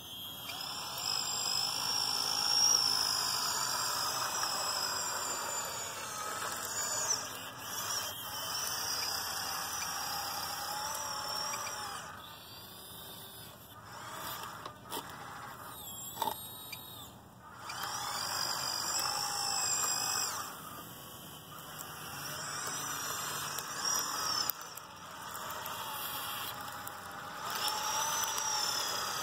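RC Cat 963 track loader's motors and gearing whining as it drives and works its bucket. The whine rises and falls in pitch, with a few short lulls and a couple of sharp clicks.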